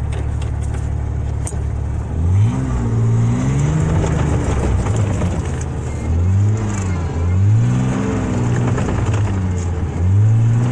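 Logging truck engine idling, then revved up and let back down several times as the driver tries to get it moving with a rear tire blown off the bead.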